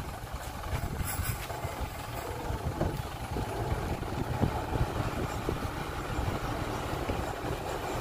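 Hyundai dump truck's diesel engine running steadily while its tipper bed is raised to dump a load of soil, with a few light knocks in the middle.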